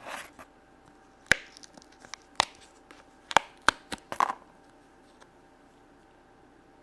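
Hands working a modelling-clay kit on a tabletop: a soft rustle at the start, then a handful of sharp clicks and taps over the next few seconds.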